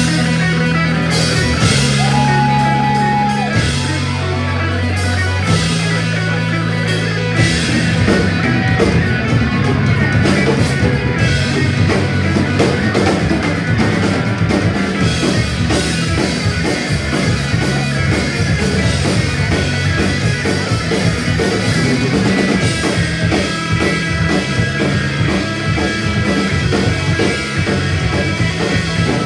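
A punk rock band playing live: distorted guitars and bass open the song with held chords, then the drum kit comes in and the full band plays fast and loud, all instrumental with no vocals yet.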